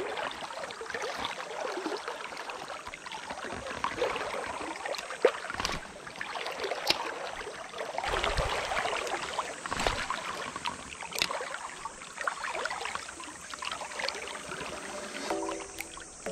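Rushing water of a shallow river riffle, with scattered splashes and ticks and a couple of dull thumps about eight and ten seconds in. Music with held notes comes in near the end.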